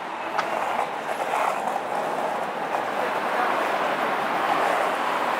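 Steady noise of city street traffic, slowly swelling over the few seconds.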